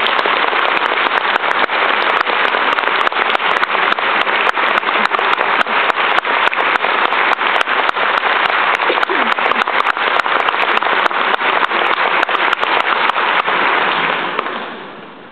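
Concert-hall audience applauding: a dense, steady clatter of many hands clapping that dies away near the end.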